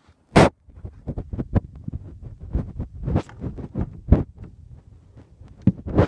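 Irregular thumps and rubbing knocks of handling noise on a hand-held camera's microphone as it is moved about close to the model boat, the loudest thump about half a second in and several more around three to four seconds and near the end.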